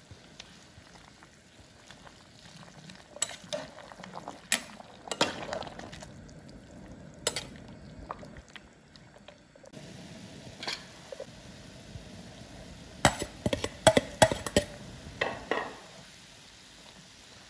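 Metal ladle stirring ivy gourd leaves and pork in broth in an aluminium pot: the ladle scrapes and clinks against the pot in scattered clusters, loudest about two thirds of the way in, over the steady bubbling of the boiling broth.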